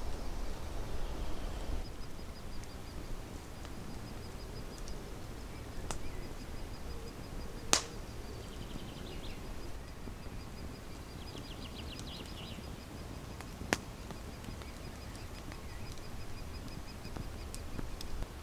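Lakeside forest ambience: a faint, high, rapid trill runs on through most of it, with a few short bird calls over a low wind rumble. Two sharp clicks, about eight and fourteen seconds in, are the loudest sounds.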